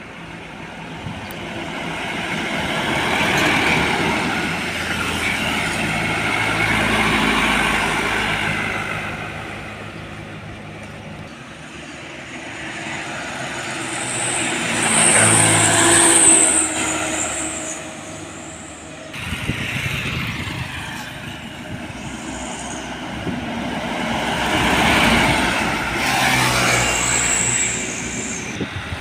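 Heavy trucks driving past one after another, their engine and tyre noise swelling and fading with each pass. A brief high-pitched whine comes twice, at the loudest passes.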